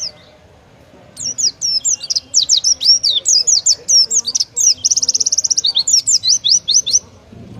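Oriental white-eye (pleci) singing a fast, loud run of high chirping notes, with a rapid buzzy trill partway through. This is the rapid-fire 'tembakan' song prized in songbird contests. The song starts about a second in and breaks off shortly before the end.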